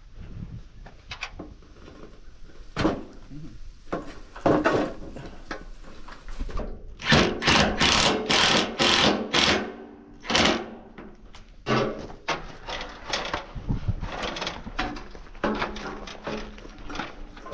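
Knocking and clanking of aluminum pergola parts being handled and fitted, with a cordless drill driving bolts in a loud run of rapid rattling strokes from about seven to ten seconds in.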